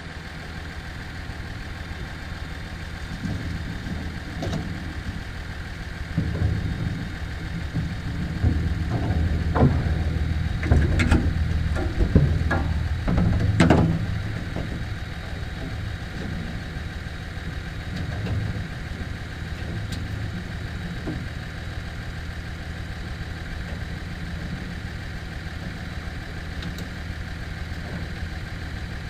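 Pickup truck engine idling steadily while it jump-starts a cold logging machine, with irregular clanks and knocks from about three to fourteen seconds in.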